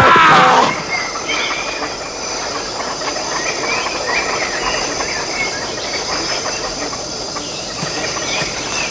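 Natural outdoor ambience: a steady, high insect drone over an even hiss, with scattered short bird-like chirps. A loud cry ends within the first second.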